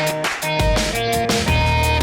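Music with a steady beat, heavy bass and drums, and sustained synth notes.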